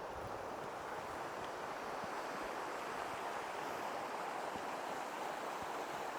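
Waterfall gushing over a cliff, a steady rush of falling water.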